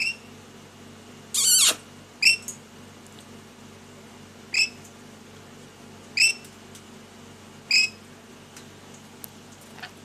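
Lorikeet calling: short, sharp rising chirps about every second and a half, with one longer, harsher screech about a second and a half in.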